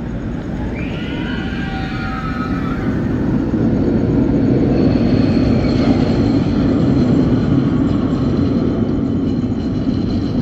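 Steel roller coaster train (the Big Apple Coaster) rumbling along its track overhead. The rumble grows louder over the first few seconds and then holds steady. There are a few high squeals about a second in.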